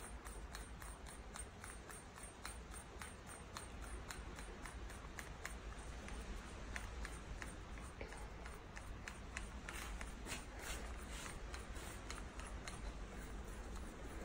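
Faint, even clicking and scraping, about three clicks a second, as the threaded end of a push-pull SCV control cable is screwed by hand into its fitting.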